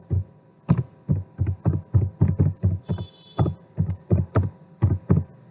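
Computer keyboard being typed on in irregular keystrokes, about three a second, each a dull thud.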